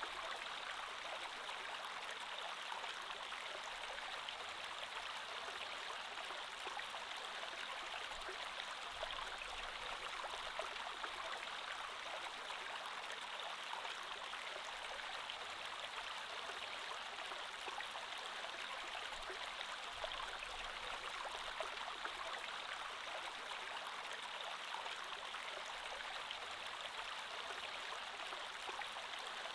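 Creek water flowing steadily over stones, a constant babbling rush.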